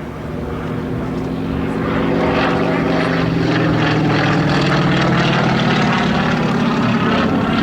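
Yakovlev aerobatic plane's M-14P nine-cylinder radial engine and propeller droning in flight, growing louder over the first two seconds and then holding steady, its pitch easing down slightly near the end.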